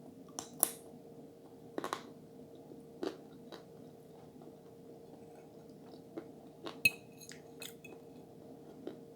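Close-miked chewing and mouth sounds of someone eating, with scattered sharp clicks and smacks over a faint steady hum. A short clink about seven seconds in.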